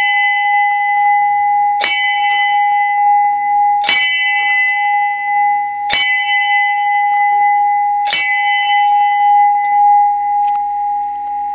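Large hanging temple bell rung by hand: four clangs about two seconds apart, each ringing on in a long steady hum over the one before, the ringing thinning out near the end.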